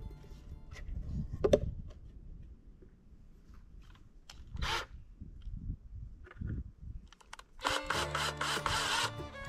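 Wooden pieces handled with a few knocks, one sharp knock the loudest, then near the end a cordless drill runs for under two seconds against the wood of a small wooden birdhouse.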